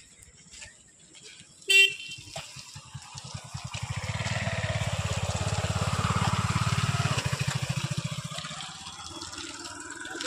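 A short horn beep about two seconds in, then a motorcycle engine putters past with a fast, even pulse, growing louder, peaking and fading away as the bike passes.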